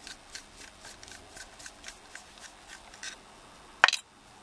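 Light, even clicking, about four clicks a second, as the screw in the top of an aluminium padlock body is turned out with a screwdriver, then one sharp click near the end.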